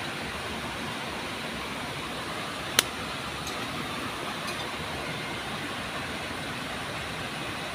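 Steady rush of river water spilling over a low concrete weir, with a single sharp click about three seconds in.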